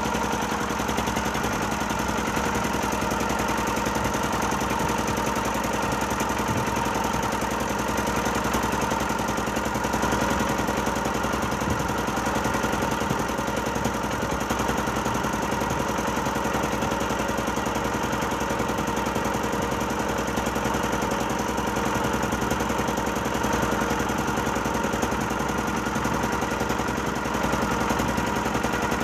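River ferry's engine running steadily under way, an even drone with several steady tones.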